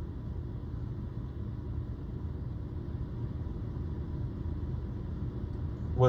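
Steady low rumble inside a car's cabin, parked with the engine idling.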